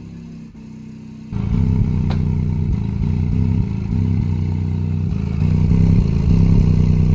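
Deaf Bonce Apocalypse car-audio subwoofer playing a bass-heavy track, driven by the palm-sized 500-watt Deaf Bonce MLA 500 amplifier. Deep bass notes step up and down in pitch, and the sound gets much louder a little over a second in.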